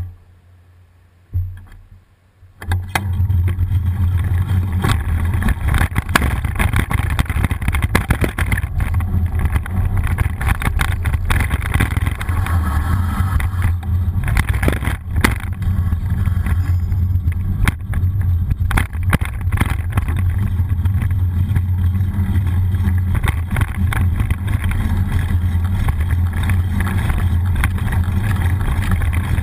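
Wind and road rumble on a bicycle's handlebar-mounted GoPro as the bike rides along: a steady heavy low rumble with frequent small rattles and crackles. It starts abruptly a couple of seconds in, after two sharp knocks.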